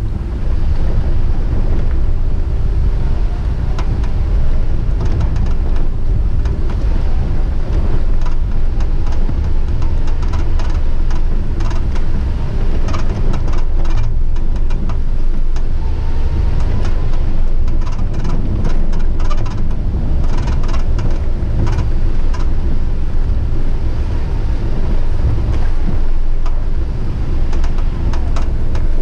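A vehicle driving, with a steady low rumble and many small knocks and rattles throughout.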